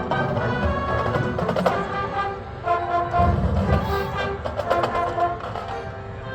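Marching band playing: sustained brass chords over percussion, with heavier low drum hits about halfway through.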